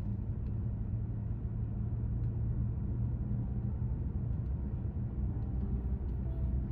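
Steady low rumble of a Hyundai Santa Fe Hybrid driving along the road: road and tyre noise with a constant low hum.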